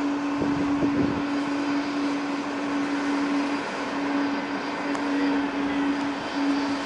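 ANA Boeing 777-200 taxiing after landing: steady jet engine noise at taxi power with a strong, steady low hum, and a few brief low rumbles about a second in.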